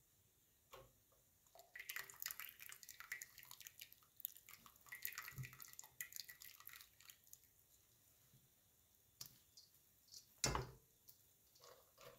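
Faint dripping and light crackling of water running off a metal colander of freshly drained rice and vermicelli, thickest for several seconds after the start, then a single sharp knock about ten seconds in.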